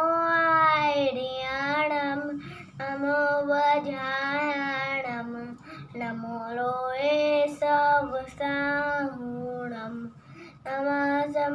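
A young boy singing a devotional prayer chant solo, in long held melodic phrases with brief pauses for breath between them.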